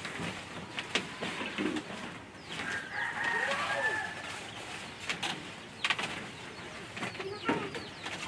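A rooster crows once, about three seconds in, over scattered knocks and rustling as blankets are shaken out and spread on a bamboo slat floor.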